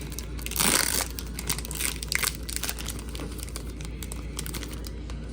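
Card pack wrapper crinkling and crumpling as it is torn open and pulled off the cards, with a louder rustle about a second in.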